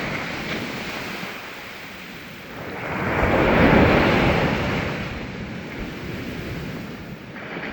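Sea waves on a sandy beach: a wave swells up about two and a half seconds in, breaks, and fades back to a steady wash of foam.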